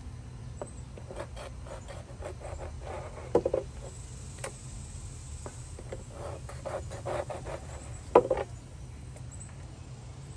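Kitchen knife scoring stingray flesh on a plastic cutting board: a scatter of light taps and scrapes as the blade meets the board, with two louder knocks, one about three seconds in and one about eight seconds in.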